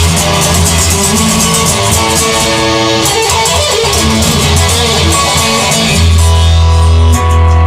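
Instrumental music led by guitar, with a bass line and drums; the bass gets louder about six seconds in.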